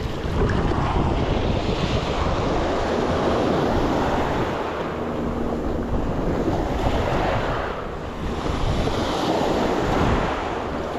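Surf breaking and washing up the beach in slow swells, with wind buffeting the microphone.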